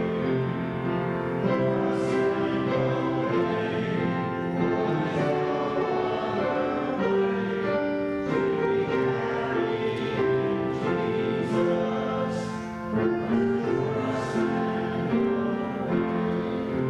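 Church congregation singing a slow hymn with piano accompaniment, in long held chords.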